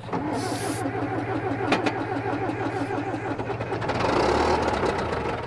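Engine of a small old John Deere crawler dozer being started, running with a fast even beat; the sound changes and grows louder about four seconds in.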